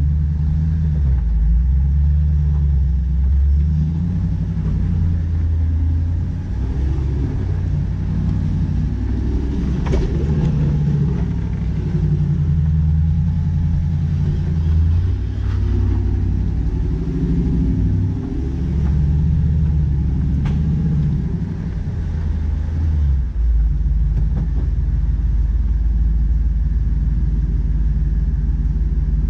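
Jeep Wrangler LJ's engine running at low revs as it crawls over rocks, its pitch rising and falling with the throttle, with a few sharp knocks along the way. Near the end it settles to a steady idle.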